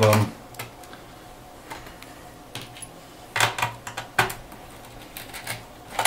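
Irregular light clicks and taps of a small screwdriver turning out the palm rest screws of a laptop, with a louder cluster of clicks about halfway through.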